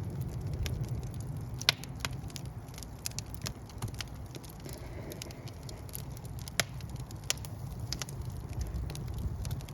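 Wood fire burning in a fireplace: a steady low rumble of flame with irregular crackles and sharp pops from the logs, the loudest pop about two seconds in and another near seven seconds.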